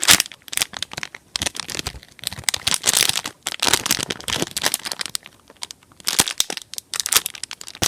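Thin plastic packaging crinkling and crackling in irregular bunches as a foam squishy toy is handled and squeezed.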